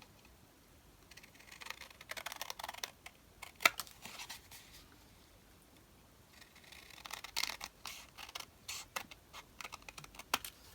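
Light clicks, taps and rustles of card stock and paper pieces being handled and set down on a desk, in two spells with a short quiet gap between.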